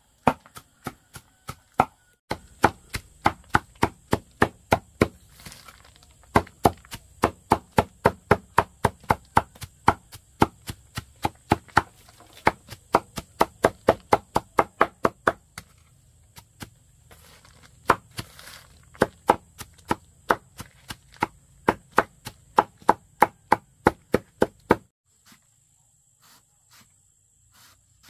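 Rapid, even chopping strikes, about three a second, which stop near the end and leave only a few faint taps.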